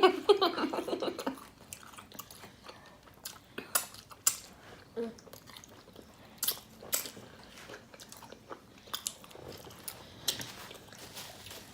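Close-miked eating: scattered crisp bites and crunches with chewing, a few sharp snaps standing out. A brief vocal sound comes right at the start.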